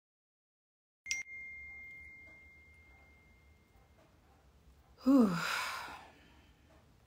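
A single bright ding about a second in that rings and fades away over a few seconds, then a woman's audible sigh about five seconds in, her voice falling in pitch as she breathes out.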